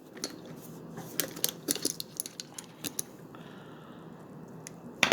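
Small metal hand tools clinking and clicking as they are handled and taken out of a tool bag: a scatter of light, irregular taps, busiest in the first few seconds and again near the end.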